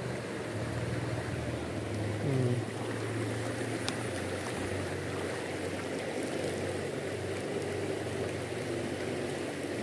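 Fast-flowing river current rushing steadily, with a brief falling tone about two seconds in.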